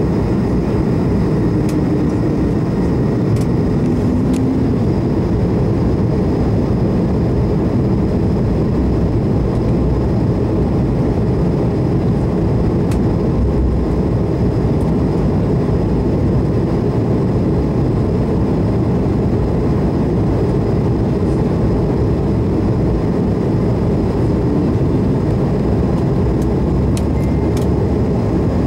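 Steady in-flight cabin noise of an Airbus A220-300 heard from a window seat: the rush of air over the fuselage blended with the hum of its Pratt & Whitney PW1500G geared turbofan engines. A faint steady high whine runs above it.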